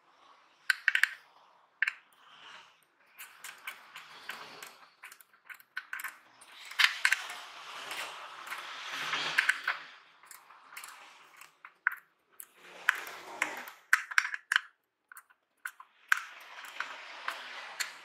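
Scattered small plastic clicks and rustling from gloved hands handling wiring and plastic parts behind a car headlight, with brief quiet gaps between bouts of handling.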